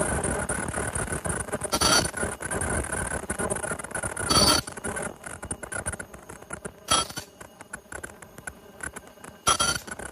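Automatic nonwoven vacuum cleaner bag-making machine running, with steady mechanical clatter and clicking and a short burst of noise about every two and a half seconds as it cycles. The low rumble eases off about halfway through.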